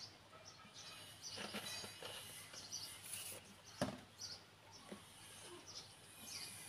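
Faint clicks and taps of a plastic drip-irrigation head being screwed onto a plastic bottle, with one sharper click about four seconds in. Birds chirp faintly in the background.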